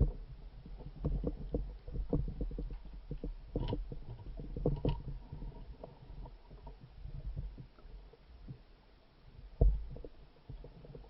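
Muffled low rumbling of water moving around a camera's waterproof housing, with irregular short knocks and one heavy thump near the end.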